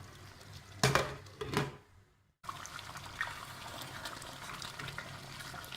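Pot of groundnut soup simmering: a steady bubbling hiss with small pops. A couple of sharp knocks come about a second in, before a brief cut-out.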